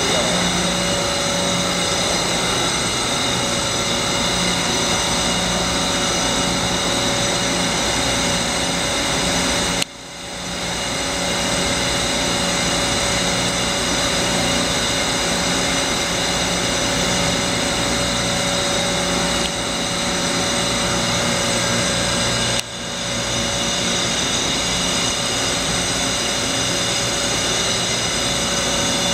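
Hyundai-Kia SKT21LMS CNC turning centre running a cutting cycle: a steady machine hum with several high whines over it. Twice the sound drops away suddenly and builds back over a second or two.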